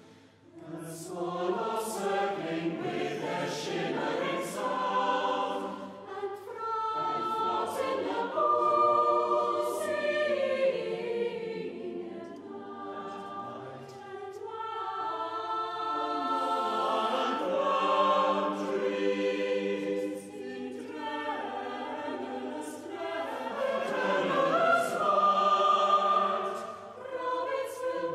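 Mixed chamber choir singing unaccompanied, sustained chords in long phrases that swell and ease off.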